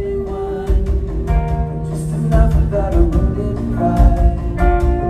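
Live rock band playing at full volume, heard from the audience: electric guitars and bass guitar over a steady drum beat.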